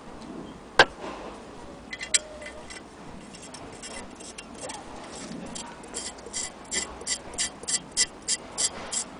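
Antique Willcox & Gibbs hand-crank chain-stitch sewing machine with one sharp metallic click about a second in, then a few scattered clicks. In the last three seconds the crank turns by hand and the mechanism ticks in a steady rhythm, about three times a second.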